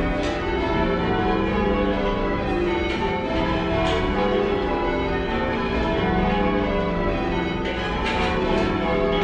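A light ring of ten church bells being rung in changes, heard from the ringing room below the bells: a continuous stream of overlapping bell strikes, rather quiet and slightly mushy.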